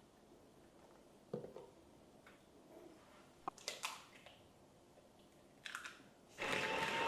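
A few light knocks and clicks of objects being handled in a quiet room, then a loud steady rushing noise starts near the end.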